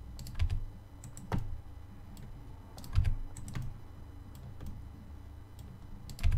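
Irregular clicks of a computer keyboard and mouse being worked, about half a dozen sharp keystrokes and button clicks spread unevenly, over a low steady hum.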